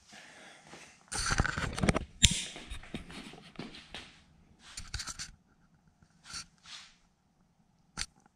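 Rustling and scuffing handling noises with sharp clicks, the loudest click about two seconds in and another near the end, as clamps and metal parts are handled.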